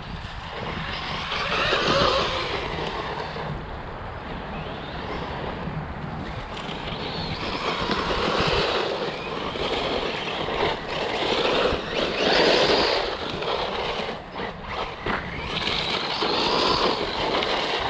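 Cheap small RC car driving over rough gravel and leaf-covered ground. Its running noise swells and drops about four times as it speeds up and slows, with a few sharp knocks in the second half.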